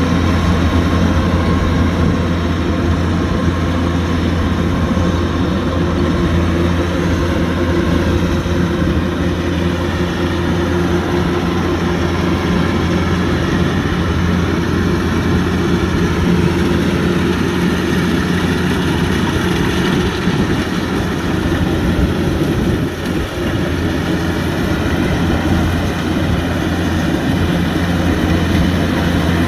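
Kubota DC-105X combine harvester's diesel engine running steadily, a deep continuous drone.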